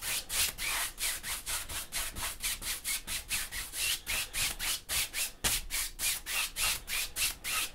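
Wide bristle brush swept back and forth across a canvas wet with oil paint and liquid white, a rhythmic rubbing of about four flat horizontal strokes a second.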